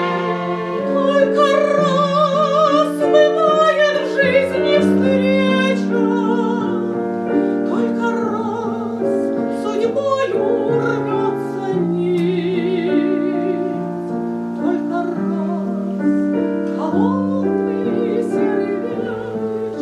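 Piano accompanying an operatic-style voice that sings a slow melody with wide vibrato.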